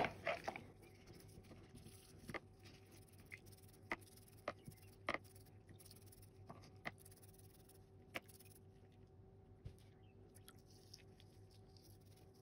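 Faint, scattered light clicks and taps of a small plastic mouse part being handled and scrubbed during washing, over a faint steady hum.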